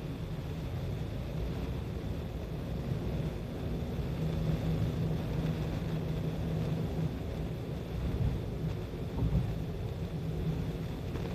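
Steady low rumble of road and engine noise from a vehicle driving at speed on an expressway.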